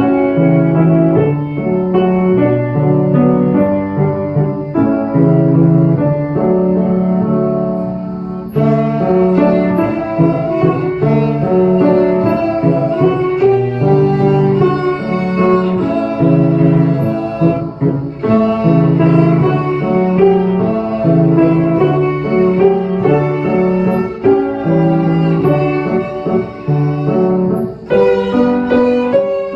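A child playing a 1/4-size violin with grand piano accompaniment: a melody in phrases over piano chords, with brief breaks between phrases.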